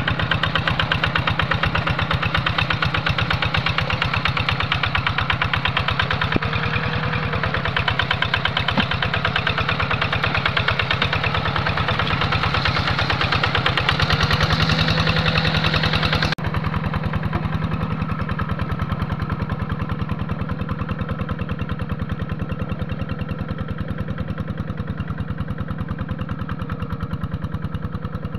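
Two-wheel hand tractor's single-cylinder diesel engine chugging steadily under load as it ploughs through flooded paddy mud. About halfway through, the sound cuts abruptly to a quieter, duller version as the tractor works farther off, fading slowly.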